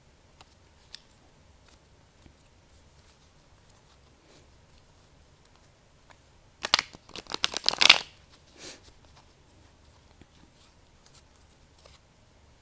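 Tarot cards being shuffled: a quick run of rapid card flicks lasting about a second and a half, about halfway through, followed by a shorter, softer rustle of cards being handled.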